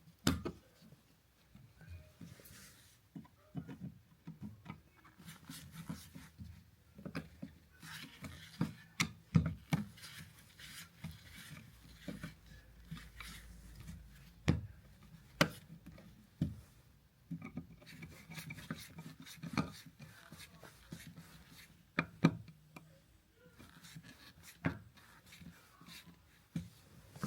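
Irregular clicks, taps and scraping from hand work on a wall outlet, with a screwdriver turning the mounting screws that fasten the new three-prong outlet into its electrical box.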